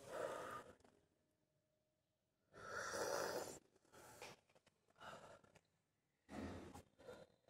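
A man's breathy sighs and exhales, about six short ones, the loudest lasting about a second, about three seconds in.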